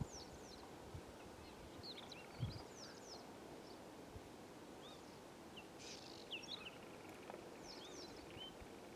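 Faint, scattered chirps and short whistled notes of small birds, with a soft low thump a little over two seconds in.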